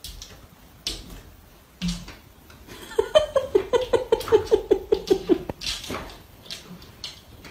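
A person laughing in a quick run of short 'ha' notes for about two and a half seconds, sliding slightly lower in pitch, with a few scattered clicks and knocks around it.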